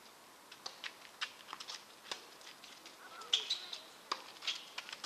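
Birds chirping: an irregular run of short, sharp chirps, with a brief held note about three and a half seconds in.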